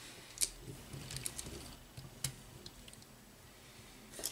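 Faint hand-assembly noises: a few small sharp clicks and taps of plastic parts and a screwdriver as a shock absorber is screwed onto the lower wishbone of a plastic RC model truck chassis.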